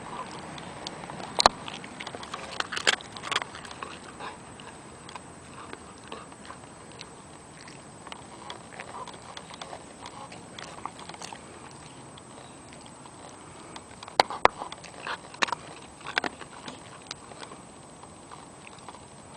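Border Collie crunching a Milk-Bone dog biscuit: irregular sharp crunches and cracks, loudest near the start and again about two-thirds of the way through, with quieter chewing and sniffing between.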